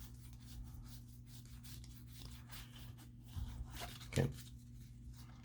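Faint rubbing and sliding of trading cards being handled and shuffled against one another, over a steady low hum.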